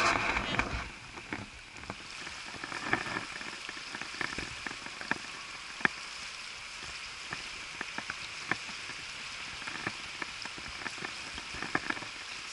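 Shallow river riffle running and babbling over stones, a steady watery hiss dotted with small splashes and drips; louder for about the first second.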